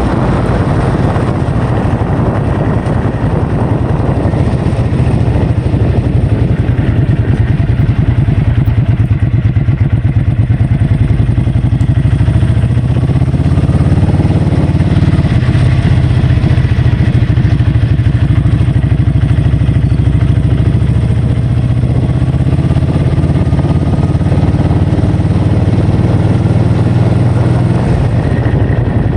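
A vehicle engine running steadily, its pitch drifting slightly up and down, under heavy wind noise on the microphone.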